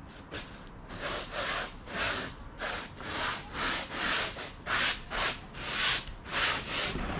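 Stiff brush scrubbing back and forth on a bitumen-felt flat roof, spreading roofing mastic in rapid strokes, about two a second.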